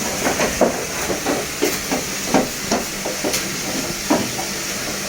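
Food cooking on the fire with a steady hiss, broken by irregular short knocks of a utensil against the pot.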